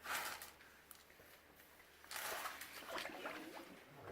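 Water splashing and sloshing as someone wades through a pool. It comes in two bursts: a short one at the start and a longer one about two seconds in.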